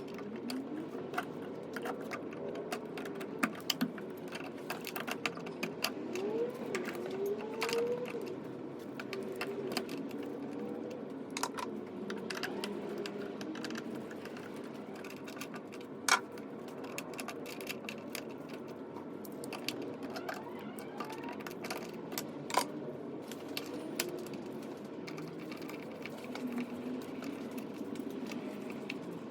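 Irregular small clicks, taps and metallic rattles of hand tools and electrical hardware being handled, with a sharper click about 16 s in and another about 22 s in.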